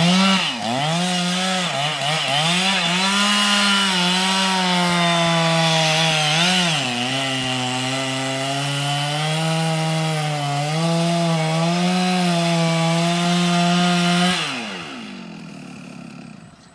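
Chainsaw at full throttle cutting into grand fir, its engine note dipping again and again as the chain bites under load. About fourteen seconds in the throttle is released and the engine note falls away.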